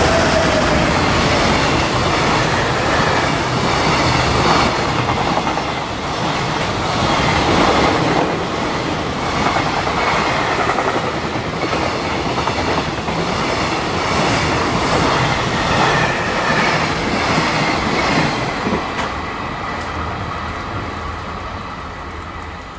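JR Freight EF210 electric locomotive and its long string of container wagons passing at speed, the wheels clattering over the rails. The sound fades away over the last few seconds as the end of the train goes by.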